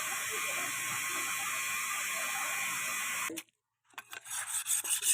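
A steady hiss for about three and a half seconds that cuts off suddenly. After a brief silence, quick repeated rubbing strokes begin and grow louder: a blade being worked against an abrasive or file.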